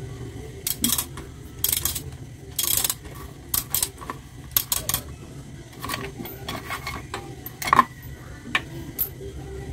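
Ratchet wrench clicking in short, irregular runs as a swing-arm bolt is loosened and backed out, with light metallic clinks of the tool and bolt.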